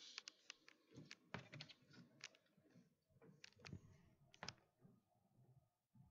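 Dry-erase marker writing on a whiteboard: a faint, irregular run of taps and short scratching strokes, several a second, thinning out near the end.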